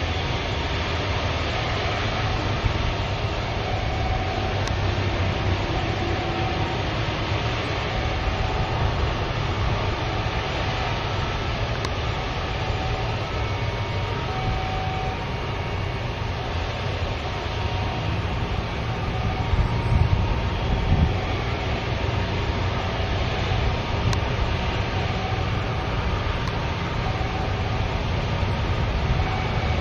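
Airbus A330 jet engines idling while the airliner holds lined up at the runway threshold: a steady low rumble with a hiss above it.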